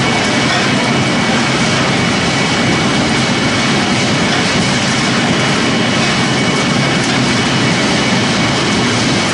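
Pellet-making machinery running steadily: a loud, even mechanical noise with a constant high whine.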